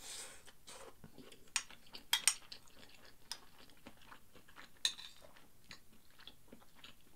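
Metal spoon scooping fried rice off a ceramic plate: light scrapes and a handful of sharp clinks in the first five seconds, with soft chewing between.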